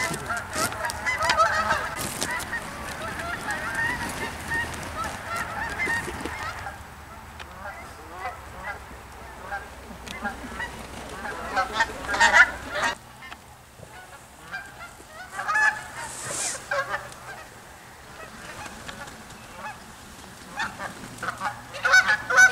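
A flock of geese honking, many calls overlapping, thickest in the first several seconds and thinner afterwards, with the background changing abruptly twice. A few sharp sounds cut through, the loudest about twelve seconds in.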